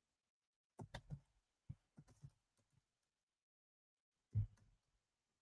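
Near silence broken by a few faint computer keyboard keystrokes: a quick run of three about a second in, then two single clicks. A soft low thump comes near the end.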